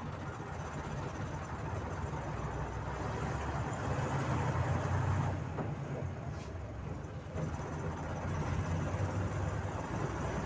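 Volzhanin-5270 city bus heard from inside the passenger cabin: its engine running under way with road noise. It grows louder over the first half as the bus speeds up, drops for a couple of seconds around the middle, then picks up again.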